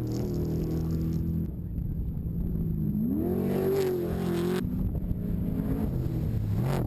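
Trophy truck engine running at high revs, with a sharp climb in pitch about three seconds in as the truck accelerates. The sound changes abruptly a couple of times.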